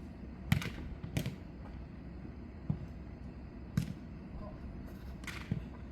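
A jokgu ball being kicked and bouncing during a rally: five sharp thuds at uneven intervals, over low background noise.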